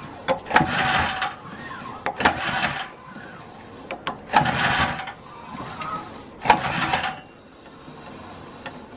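Recoil pull-starter of a small four-stroke OHV engine pulled four times, about two seconds apart. Each pull is a short burst of the rope and engine turning over, cranked with the spark plug out and a compression tester in its hole. The engine has no compression.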